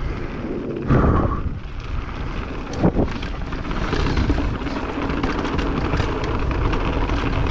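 Mountain bike riding down a dirt trail: wind rushing over the camera microphone with tyre noise, and the bike clattering over bumps in quick knocks, one sharper knock about three seconds in.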